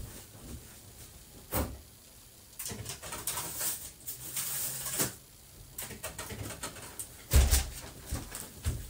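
Scattered knocks and rustling from someone handling things off-microphone, with a louder thump about seven seconds in.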